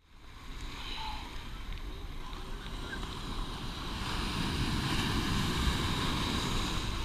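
Surf washing in and out in shallow water close to the microphone, with wind buffeting the microphone. Fades in at the start.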